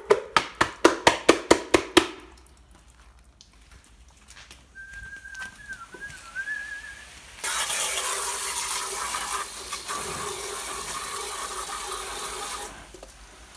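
About a dozen rapid scrubbing strokes in the first two seconds as the hive box is washed. A brief wavering whistle sounds near the middle, then water gushes steadily for about five seconds and cuts off suddenly.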